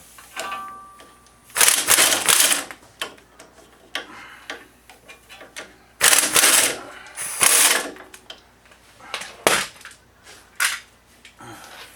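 A ratchet backing out bolts in short bursts, five or so, the longest about two seconds in and six to eight seconds in, with small clicks between them.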